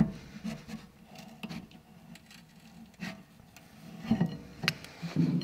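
Sharp clicks and scraping of metal on metal as a VW Golf 5 rear brake caliper is levered with a screwdriver and worked off the brake disc by hand. The clicks come a few times, roughly every second and a half.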